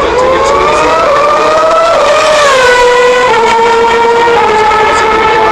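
2011 Formula 1 car's 2.4-litre V8 engine at high revs. The pitch climbs for about two seconds, then drops in two sudden steps as it shifts up, and holds nearly level near the end.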